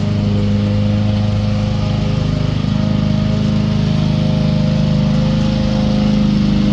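Homemade remote-control lawn mower running steadily while mowing, its motor's even drone shifting slightly in pitch partway through.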